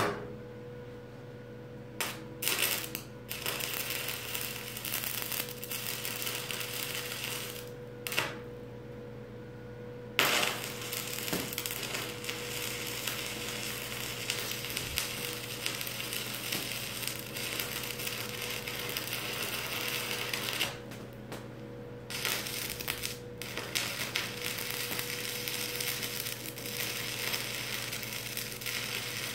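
Stick (arc) welder crackling steadily while a weld is run joining a steel post to a steel beam. The arc stops and is struck again several times: about two seconds in, about eight to ten seconds in, and around twenty-one seconds in. A steady low hum runs underneath.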